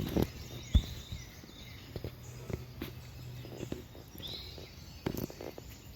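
Outdoor ambience with faint bird chirps over a low steady hum, broken by a few soft knocks, the sharpest near the start and just before one second in.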